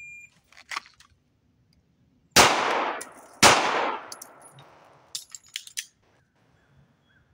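A short electronic beep from a shot timer, then two 9mm shots from a CZ P01 pistol about a second apart, each ringing out in an echo. A few sharp metallic clicks follow during a slide-lock magazine reload, after which the slide fails to go into battery.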